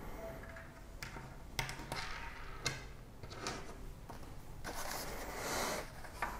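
Faint handling noises from a Torx screwdriver on the small screws of a plastic instrument cluster housing: a few sharp clicks, then a longer scrape near the end.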